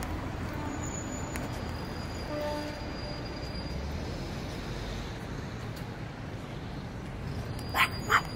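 Steady outdoor background noise, then near the end a dog barks twice in quick succession.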